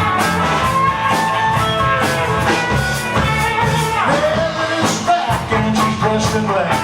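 Live rock-and-roll band playing an instrumental passage: electric guitar over bass and drums, with some bent, gliding notes about four seconds in.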